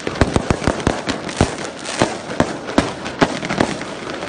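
Fireworks going off in a rapid, irregular string of sharp bangs and cracks, about four to five a second.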